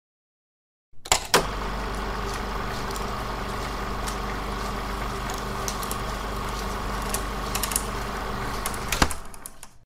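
Intro sound effect: a steady mechanical hum with a deep low drone, sprinkled with small crackles and clicks. It starts with two sharp clicks about a second in and ends with another click shortly before it fades out.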